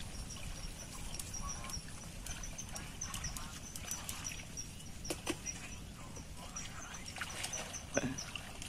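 Riverbank ambience: a steady run of short, high chirps from a small animal, several each second, over a low rumble. A few light splashes from wading in the water, two of them about five seconds in and one, the loudest, near the end.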